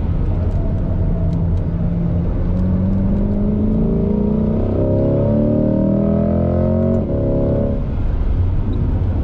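C8 Corvette's V8 heard from inside the cabin at track speed, the engine note rising steadily under hard acceleration out of a corner in third gear. About seven seconds in, a quick upshift into fourth drops the pitch, and the engine pulls on.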